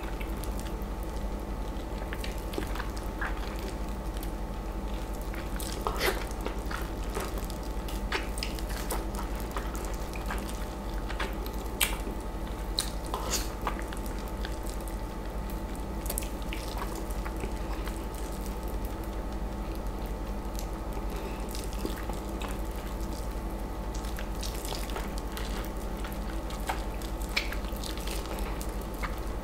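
Wet mouth sounds of juicy East Indian mango flesh being eaten off the skin: scattered short squishes and smacks over a steady background hum.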